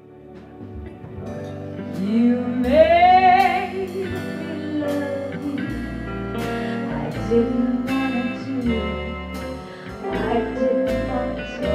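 A woman sings long held notes into a microphone over guitar accompaniment, the music swelling in over the first two seconds.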